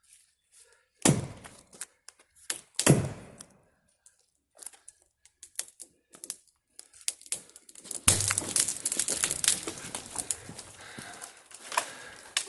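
Two heavy axe strikes into dead ash wood, then scattered small cracks of the wood, and from about eight seconds in a long crackling crash of wood and branches lasting about four seconds.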